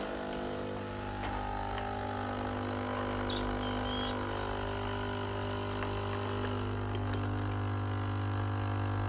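Capsule coffee machine's pump running steadily while it brews, a constant buzzing hum with several even tones.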